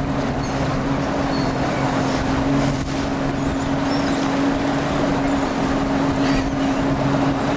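Boat engine running steadily at trolling speed: a constant low hum over a rushing hiss of wind and water.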